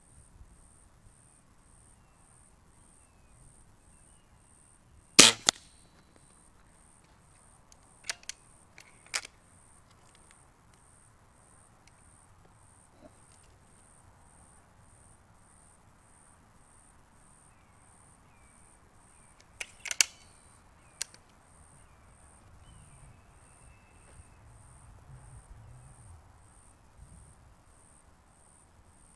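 Weihrauch HW 97K .177 underlever spring-piston air rifle firing once about five seconds in, one sharp crack. It is followed by the clicks of the rifle being cocked and loaded: a pair of lighter clicks a few seconds later and a tighter cluster of sharp clicks about two-thirds through.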